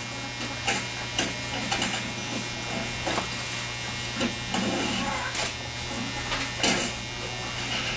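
Electric hair clippers buzzing steadily, with occasional sharp clicks.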